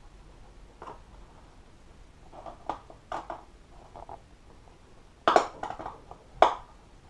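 Hands handling a clear plastic bottle and small parts on a workbench: scattered light clicks and plastic knocks, with two sharper knocks a little after five seconds and again about a second later.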